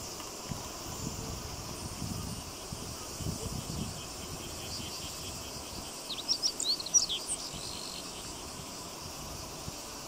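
Meadow bunting singing one short phrase of quick, high notes about six seconds in, over a faint steady insect buzz.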